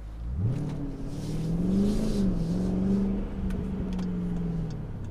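Car engine accelerating, heard from inside the cabin: the engine note climbs in the first second, holds fairly steady, and eases off near the end. A regular light ticking starts about three and a half seconds in.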